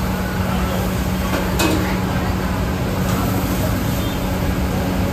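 Steady commercial kitchen noise at a large dosa griddle: an even hiss of dosas cooking on the hot iron over a constant low hum, with a faint click or scrape about a second and a half in.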